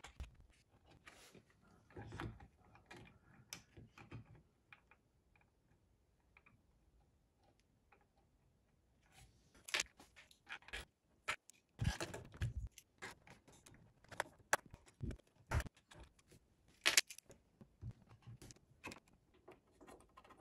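Scattered small clicks and taps of metal screws and 3D-printed parts being handled and fitted during assembly. There is a near-silent stretch in the middle, then sharper clicks come thick and fast in the second half.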